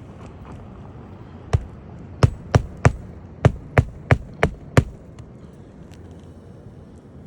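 Hammer striking nails into asphalt roofing shingles: nine sharp blows, a single one, then a quick uneven run of eight.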